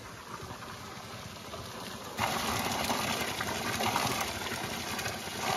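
A stream of water pouring from a village spout and splashing onto rocks, cutting in suddenly and louder about two seconds in; before that, a quieter steady rushing.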